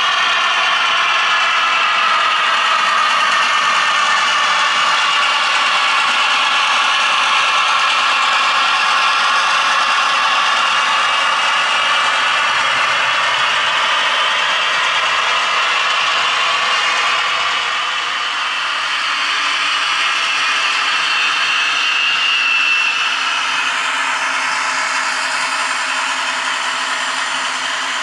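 Piko V 200 model locomotive running along the track: a whine from its motor and gears that drifts gently up and down in pitch, with the wheels rattling over the rails. It gets slightly quieter a little past halfway.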